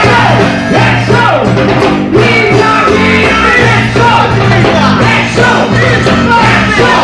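Loud band music with singing over a steady, repeating bass line.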